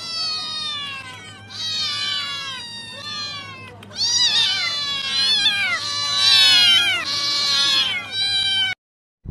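Several domestic cats meowing over one another in a continuous chorus of overlapping calls, louder from about four seconds in, begging to be fed. The meowing cuts off abruptly near the end.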